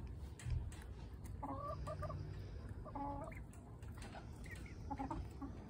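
Chickens clucking quietly: a few short calls about a second and a half in, another around three seconds, and fainter ones near the end.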